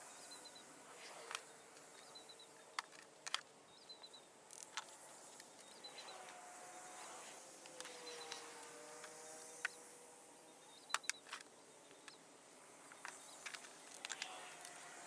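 Faint background hiss with scattered short, light clicks and taps, and a few faint high chirps.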